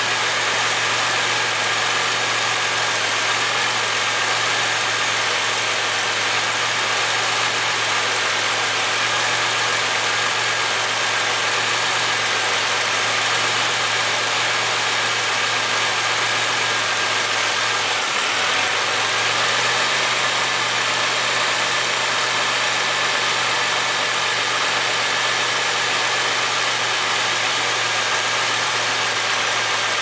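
2002 Pontiac Grand Prix's 3800 Series II 3.8 L V6 idling with the hood open, with a steady high-pitched whine over the engine note. The pitch dips briefly about two-thirds of the way through. This is the rough idle that the owner describes as bogging down about once a second, with the strain heard in the higher-pitched engine noise.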